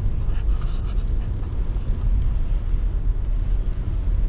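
Steady low rumble of a car driving slowly, with engine and tyre noise heard from inside the cabin.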